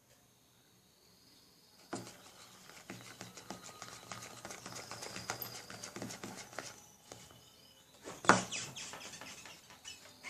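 Freshly activated slime of white glue and shaving foam being stirred and worked in a pot, giving a dense run of sticky crackling and squelching clicks that starts about two seconds in. A loud knock comes near the end. Faint high bird chirps are heard before the crackling starts.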